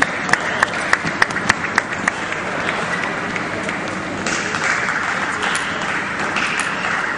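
Audience applauding, with a run of sharp, evenly spaced clicks about three a second in the first two seconds. The applause grows fuller about four seconds in.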